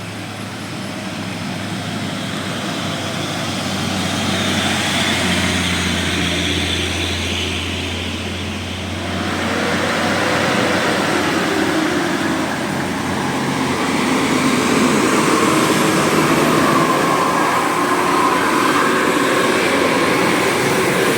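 Road traffic noise of heavy vehicles running and passing, with a low engine hum. It swells over the first few seconds, dips about eight seconds in, then builds again.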